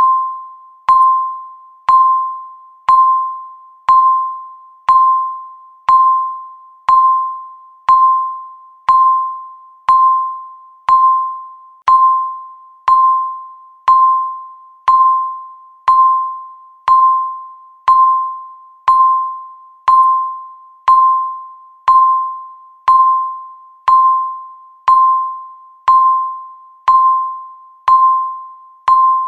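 Countdown timer beep sounding once every second, marking each second left. Each beep is a single tone at the same pitch that starts sharply and fades away before the next.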